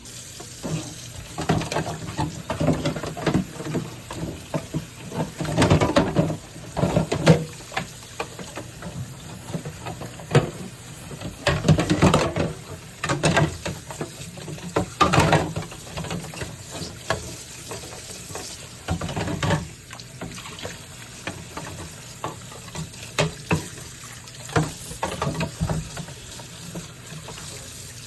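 Wet scrubbing and splashing of water in irregular bursts, with scattered light knocks and clicks, as refrigerator shelves and surfaces are washed.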